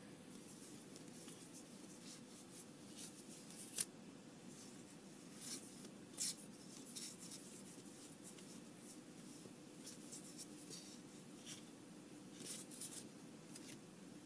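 Trading cards being flipped and slid against one another in the hands: a faint run of papery rubs and flicks, with a few sharper flicks, over a low steady hum.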